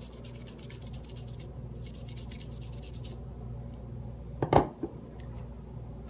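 Toothbrush scrubbing a Glock pistol with gun cleaner: quick, even bristle strokes for about three seconds. A single sharp knock about four and a half seconds in, with a lighter one right after.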